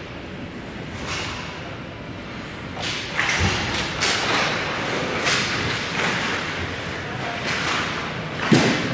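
Ice hockey play close to the net: skate blades scraping and stopping on the ice in a run of short hissing scrapes, with sticks and puck clattering, a thud about three and a half seconds in and a louder thump near the end.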